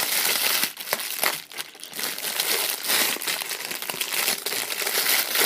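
Plastic squishy packaging crinkling irregularly as it is handled and wrapped back around a squishy, with small sharp crackles, easing briefly about one and a half seconds in.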